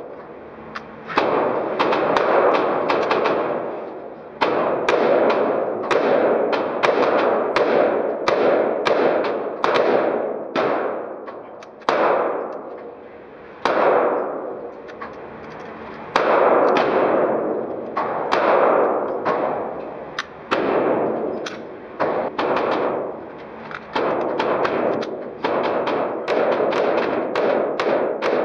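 Rifle gunshots at an indoor shooting range: dozens of single shots, one or two a second with a few short pauses, each ringing out in a long echo off the concrete.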